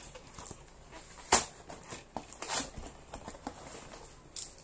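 Yellow snap-off utility knife cutting through a cardboard box, with irregular scraping, rustling and handling of the cardboard. A sharp click about a second and a half in is the loudest sound.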